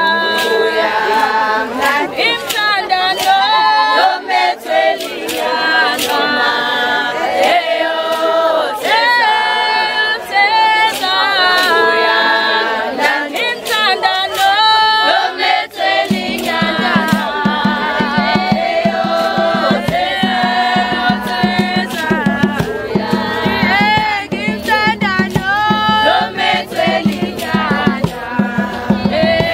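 A crowd of voices singing a Zulu ceremonial song together in harmony, with sharp percussive hits throughout. About halfway through, a low pulsing beat joins the singing.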